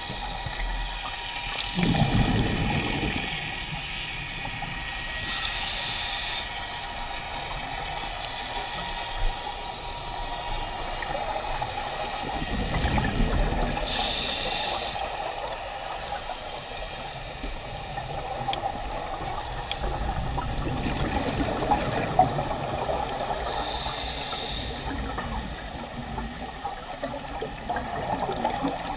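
Scuba diver breathing through a regulator underwater: three short hissing inhalations about nine seconds apart, between low rumbling swells of exhaled bubbles.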